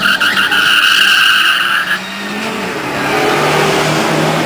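A car's tyres spinning and squealing in a loud, steady screech that stops about two seconds in, after which an engine carries on running with a low, steady note.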